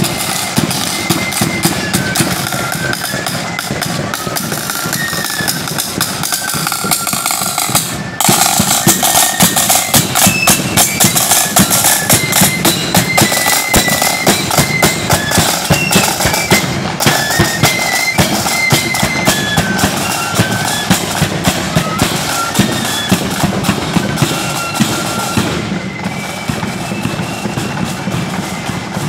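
Marching flute band playing: flutes carry a tune over side drums and a bass drum. The drumming suddenly gets much louder about eight seconds in.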